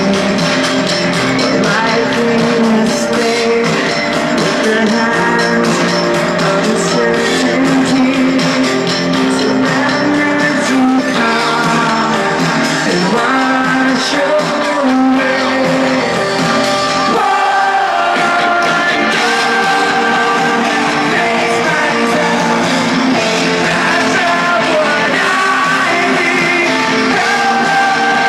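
Rock band playing live, a male lead singer over the band, recorded from the audience. The bass drops away briefly about seventeen seconds in.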